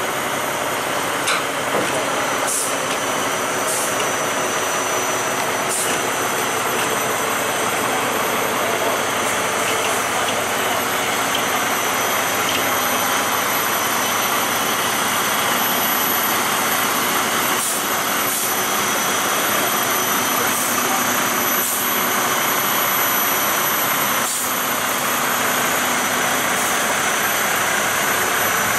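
Heavy vehicle engine running steadily as it moves a hydraulic boat trailer, carrying a fishing boat, down a launch ramp into the water. A few short clicks sound over it.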